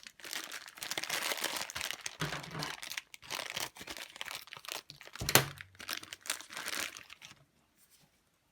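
Kinder Surprise egg packaging crinkling and rustling as it is handled, with a sharp knock a little past halfway that is the loudest moment; it stops about a second before the end.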